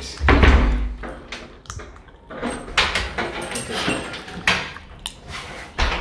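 A wooden door being worked with a newly fitted lever-handle lock: a heavy thud about half a second in, then a series of sharp clicks and knocks as the key and handle are turned to test the lock and its latch.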